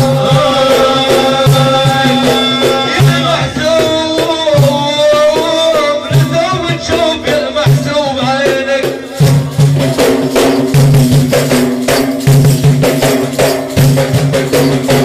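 Sufi dhikr chanting: a lead voice sings a long, drawn-out melody over a steady beat of frame drums. About nine seconds in, the singing drops back and the drumming becomes denser and louder.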